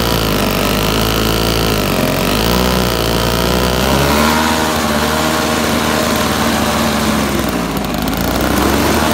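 Snapper 3200 single-stage snowblower's 3 HP Tecumseh engine running as it clears snow, its pitch wavering up and down under the changing load for the first few seconds, then running steadier.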